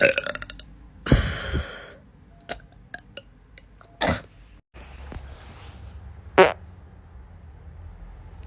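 A string of separate farts. The first is a quick rattling one, and a longer, hissier one follows about a second in. Two shorter single blasts come later.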